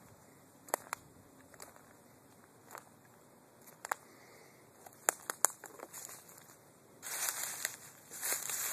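Footsteps crunching through dry leaf litter and twigs in woodland undergrowth, with scattered sharp snaps at first, then louder rustling of brush from about seven seconds in.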